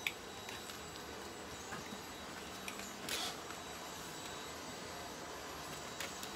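Quiet room background with a thin high whine, a few light clicks, and a brief scratchy rustle about halfway through from a small Chihuahua moving around its pen and stepping onto a plastic pee-pad tray.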